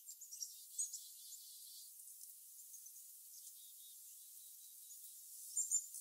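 Small songbirds giving short, high chirps over a faint hiss: a few just under a second in and a quick cluster of sharper calls near the end.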